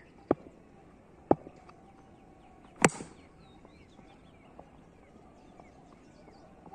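Three sharp knocks about a second apart, the third the loudest.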